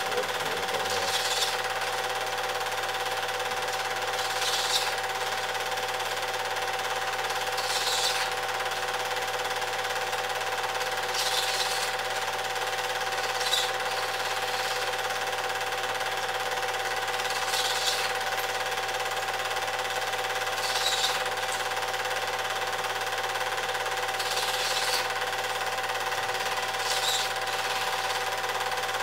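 A cine film projector running steadily, its mechanism giving an even, machine-like whirr with a steady hum. A short, high, scratchy burst recurs about every three seconds.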